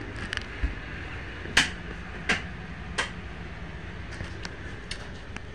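Footsteps and handling knocks from a phone being carried: three sharp knocks about two-thirds of a second apart, then lighter ticks and a louder click at the end, over a steady low hum.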